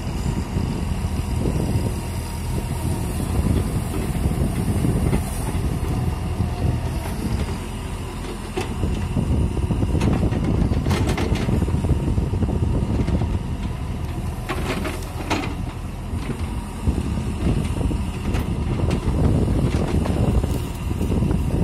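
JCB JS140 tracked excavator's diesel engine running as the machine digs. Its loudness rises and falls with the boom and bucket work, and a few short knocks come about halfway through and again a few seconds later.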